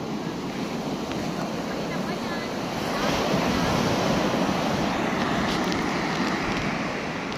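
Surf breaking and washing up on a beach, with wind buffeting the microphone. The surf swells louder about three seconds in as a wave crashes.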